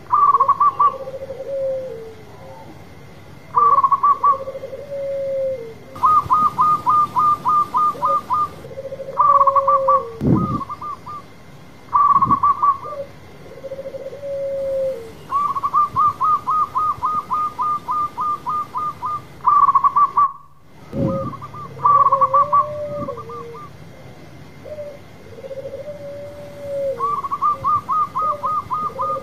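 Zebra doves (perkutut) cooing over and over: bursts of quick, rattling staccato notes alternating with lower, drawn-out rolling coos. A couple of low thumps come about ten and twenty seconds in.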